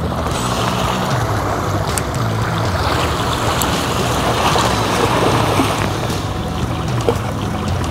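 Steady rushing sea-water noise, with a low hum underneath.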